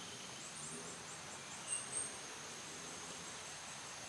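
Steady high-pitched drone of forest insects, with a few faint short high chirps about half a second in and again near two seconds.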